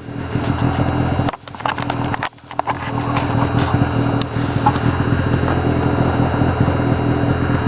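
Snowmobile two-stroke engine running under way. The sound drops off briefly twice in the first few seconds, then runs steadily.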